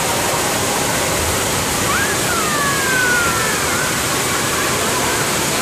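Steady hiss of splashing water from a pool's spray fountain, with faint high children's calls about two seconds in.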